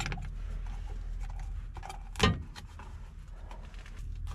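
Small clicks and rustles of a knife and hands working the tape off a wiring harness, with one louder noise about two seconds in, over a steady low hum.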